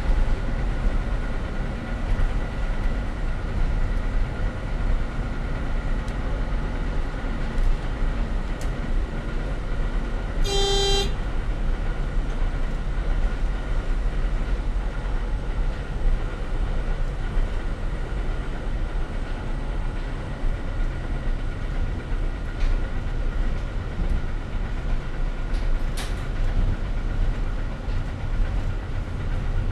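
Y-train diesel railcar running along the line, heard from the driver's cab as a steady rumble with track noise. About ten seconds in, one short toot of the train horn.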